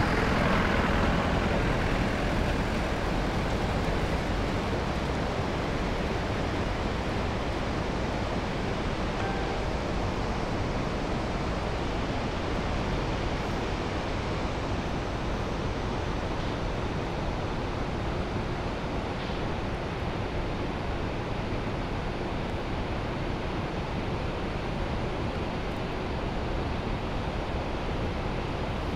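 Steady rushing of a river in spate, an even roar of water with no breaks.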